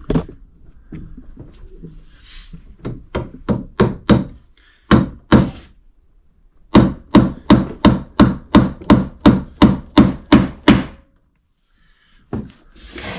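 Hammer driving cable staples into a wooden stud to fasten electrical cable: short runs of sharp blows on wood, ending in a steady run of about a dozen blows at about three a second.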